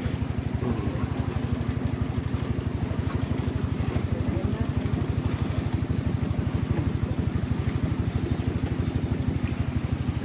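Boat engine running steadily with a fast, even putter as the boat cruises.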